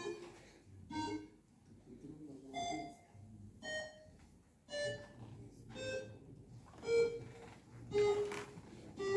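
A slow electronic melody: single bright beeping notes, about one a second, each at a different pitch.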